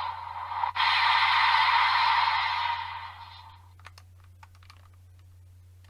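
Desire Driver toy belt's small speaker playing a noisy, hissing blast sound effect that fades out after about three and a half seconds, followed by a few light clicks.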